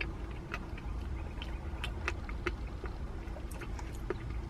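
Steady low background rumble, like an idling vehicle, with scattered faint short clicks and ticks.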